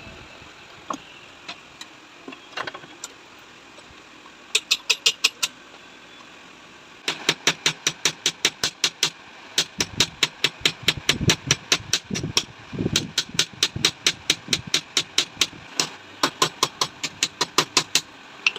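Rapid runs of sharp metallic taps, about seven a second, from work on a motorcycle rear shock absorber. A short run comes about four and a half seconds in, then an almost unbroken run starts about seven seconds in and lasts until near the end.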